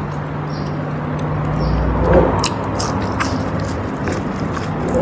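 Close-up eating sounds: a person chewing and biting food, with scattered sharp wet mouth clicks, loudest about two seconds in and again near the end.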